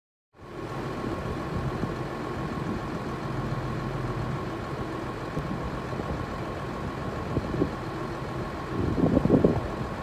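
Tractor diesel engines running steadily, with a thin steady whine over the rumble and a louder surge near the end.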